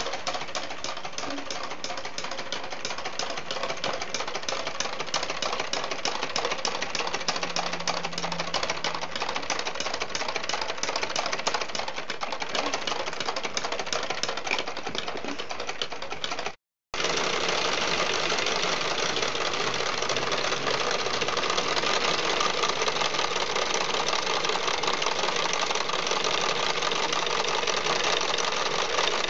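Lego and Duplo model stationary engine running, its plastic crank, flywheel and valve gear making a steady, rapid clatter of clicks, with a brief break about two-thirds of the way through.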